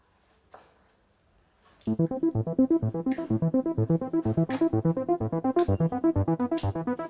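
Synthesizer keyboard music with a quick pulsing pattern starts about two seconds in. Before it and over it come a few sharp cracks of eggs being broken on the rim of a glass bowl.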